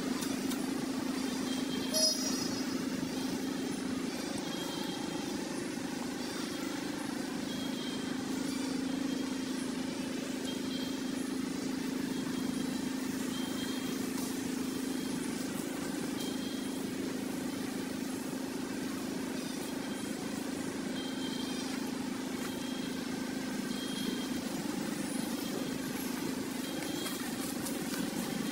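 Steady low mechanical hum, with faint short high chirps every couple of seconds and one sharp click about two seconds in.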